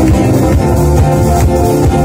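Live band playing: acoustic guitars strummed over an electric bass guitar, loud and steady.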